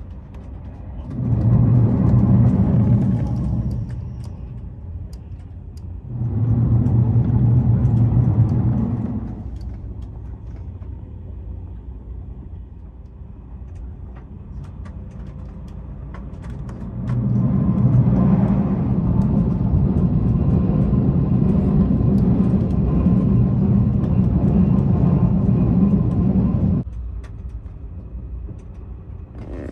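Low rumble of a TGV inOui high-speed train heard from inside the passenger coach while running. The rumble swells much louder three times: briefly twice, then for about ten seconds, each swell starting and ending abruptly.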